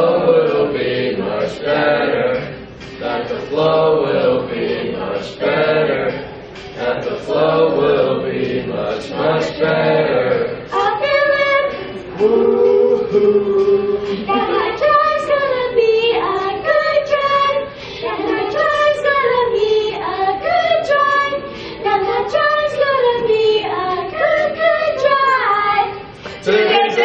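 A group of children singing together without accompaniment: quick short phrases at first, then longer drawn-out notes that slide up and down from about halfway through.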